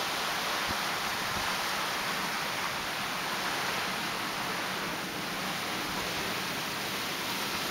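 Surf breaking on a coral reef: a steady, even hiss of waves without distinct crashes.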